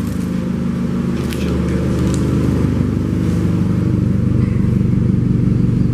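Toyota 2AZ-FE 2.4-litre 16-valve four-cylinder engine running steadily, with a few faint clicks and scrapes.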